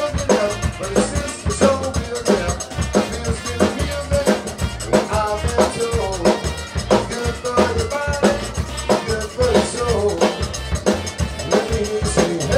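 Live band playing an upbeat number: a drum kit keeps a steady beat under electric bass and a melody line, with a metal rubboard (frottoir) scraped along in zydeco style.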